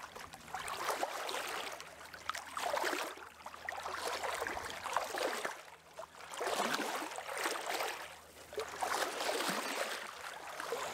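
Gentle water lapping and sloshing, swelling and fading every second or two, over a faint low steady hum.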